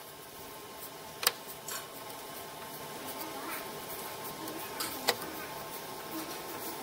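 Stainless steel pieces being picked up and set down on a tabletop: two sharp metallic clicks, about a second in and near the end, with a few lighter taps, over a faint steady hum.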